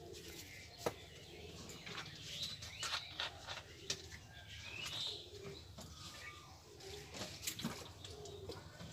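Faint birds chirping and a dove cooing, with a few sharp clinks and knocks of steel plates and bowls being moved, the loudest less than a second in.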